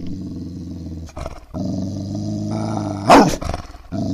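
Low, steady dog growling in two long stretches, broken by a short, loud cry just after three seconds.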